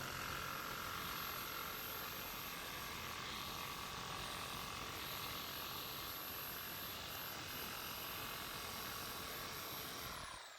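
Electric power tool motor running steadily with a high whine, then switched off near the end, its whine falling in pitch as it spins down.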